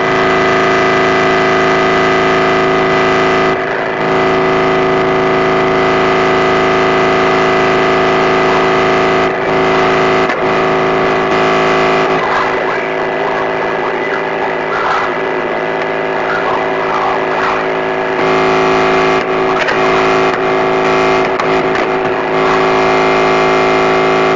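Harsh noise wall: a loud, unbroken wall of distorted electronic noise with steady droning tones layered through it. It drops out briefly near 4 and 10 seconds in, and wavering squeals rise and fall through the second half.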